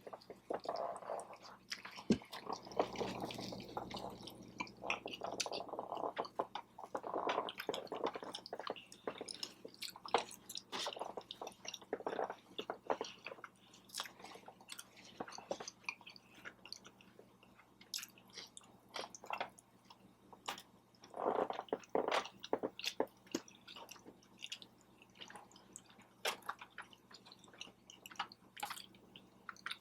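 A person chewing food close to the microphone: wet mouth sounds with many irregular small clicks and smacks, and busier stretches of chewing here and there.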